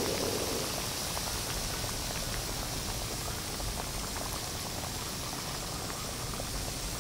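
Flour-battered pork pieces frying gently over a low flame in a wok of oil mixed with Planta margarine: a steady bubbling sizzle with many small crackles.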